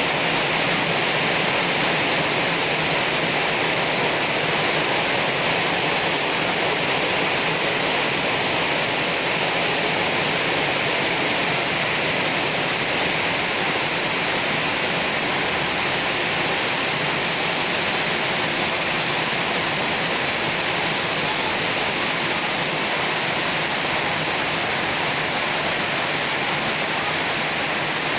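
Heavy typhoon rain pouring steadily, a dense even hiss with no let-up.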